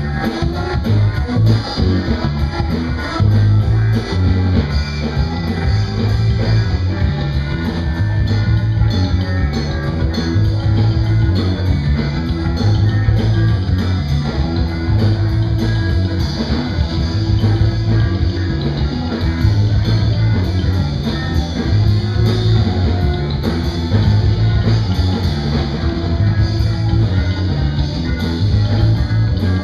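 A live band improvising jazz: electric bass guitar carrying a heavy low line, a drum kit keeping a steady cymbal beat, and a keyboard.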